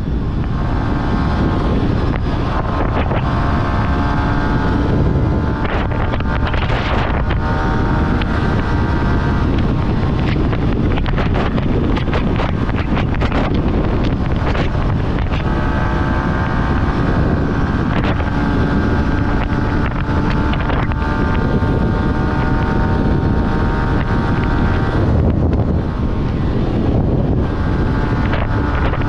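Yamaha R15 motorcycle's single-cylinder engine running at road speed, its note held fairly level and dipping briefly a few times, under heavy wind rushing over the microphone.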